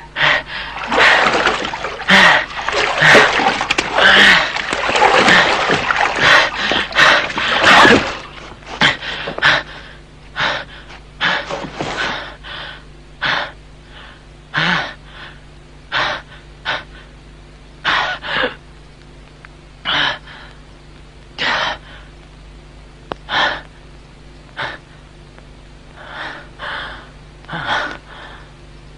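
A person gasping for breath: loud, rapid gasps packed together for about the first eight seconds, then slowing to single short gasps every second or two.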